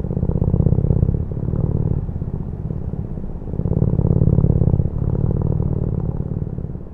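Domestic cat purring: a fast, even, low rumble that swells and eases with its breathing, loudest in the first second and again about four seconds in.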